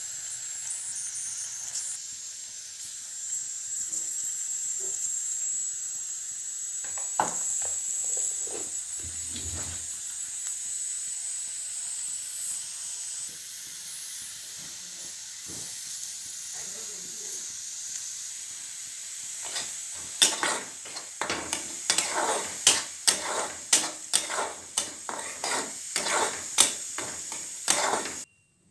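Food sizzling in hot oil in a pan, fried until the oil separates. In the last several seconds a spatula scrapes and clacks against the pan in quick strokes as it is stirred, and the sound cuts off suddenly near the end.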